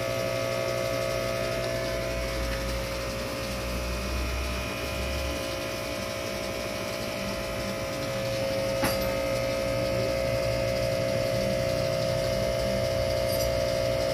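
A small aquarium pump humming steadily, with one light click about nine seconds in.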